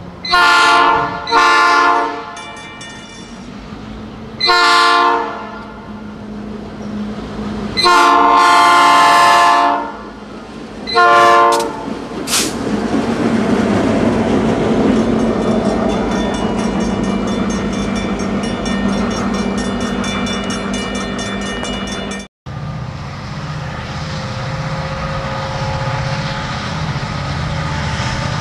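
Diesel freight locomotive's multi-chime air horn sounding five blasts, two close together, then three more with the fourth the longest, as a train nears the grade crossing. The rumble and rail clatter of the approaching train then grow steadily louder. After a sudden cut, diesel locomotives are heard running low and steady.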